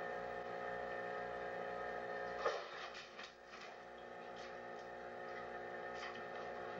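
Steady hum of several even tones on an old camcorder recording, with a sharp knock about two and a half seconds in and a scatter of light clicks after it as a cat scrambles and slips on the lid and glass of an aquarium.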